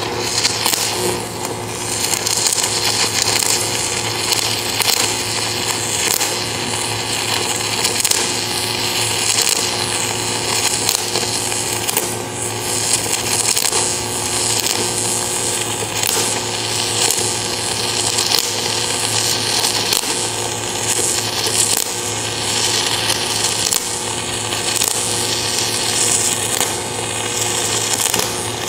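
A 1000-amp stick-welding arc burning continuously on a 3/4-inch Cor-Met F25 electrode as a bead is dragged along: a steady, loud crackling hiss with a low hum underneath.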